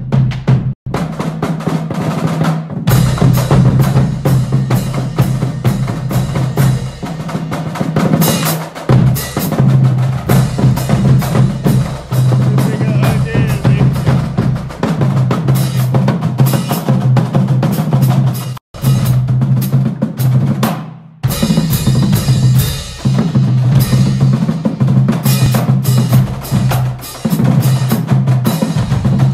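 Marching drumline playing a fast cadence: marching bass drums and snare drums struck in a dense, rhythmic pattern, loud, with a few brief breaks.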